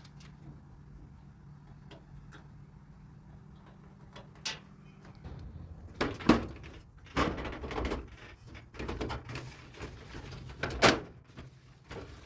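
Knocks, clicks and clatter of a General Electric clothes dryer's sheet-metal front panel being handled and fitted back into place. The first five seconds are quiet handling; sharp knocks follow, the loudest about six, seven and eleven seconds in.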